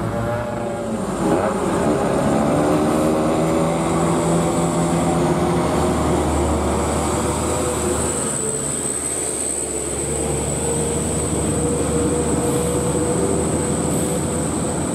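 Heavy diesel truck engine working hard on a steep hairpin climb, its pitch shifting through the first half, then holding steady. A steady high whine runs over it.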